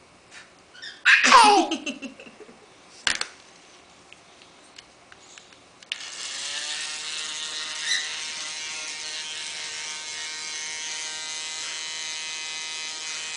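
A toy hair dryer's small battery motor switches on about six seconds in and runs with a steady whirring buzz. Before it, about a second in, there is a brief loud sound falling in pitch, then a single click.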